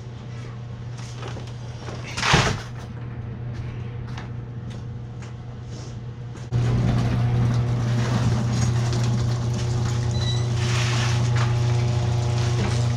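A steady low motor or engine hum, which jumps suddenly louder about six and a half seconds in. A brief loud clatter comes about two seconds in.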